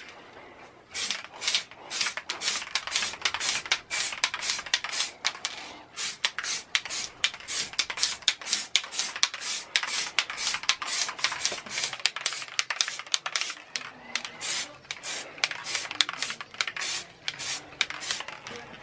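Aerosol spray can of clear lacquer hissing in short bursts, about two or three a second, as a clear coat goes onto freshly painted car wing mirror parts; a short pause in the first second.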